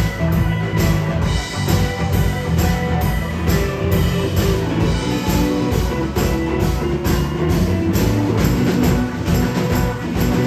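Blues-rock band playing live: drum kit keeping a steady beat under bass, guitar and other instruments, with no singing.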